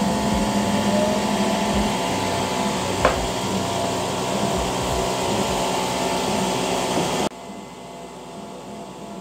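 Creality Falcon A1 enclosed laser engraver running a job: a steady mechanical whir, with a faint rising whine in the first second or so and a single click about three seconds in. The noise drops suddenly to a quieter hum near the end.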